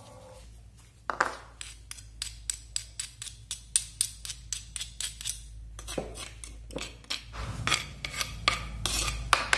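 Pestle crushing and grinding turmeric, ginger and garlic in a mortar, with short, regular strikes about four a second starting about a second in.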